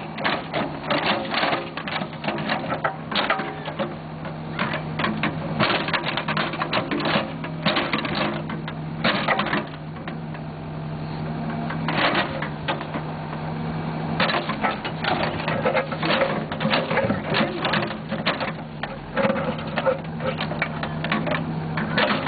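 Backhoe engine running steadily while the bucket's steel teeth grind a CD into gravelly dirt, with dense irregular crunching and crackling that pauses briefly about halfway through.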